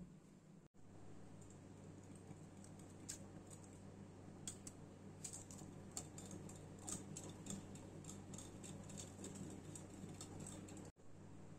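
Wire whisk beating a cream mixture in a glass bowl: faint, irregular light clicks of the metal tines against the glass, several a second, over a low steady hum.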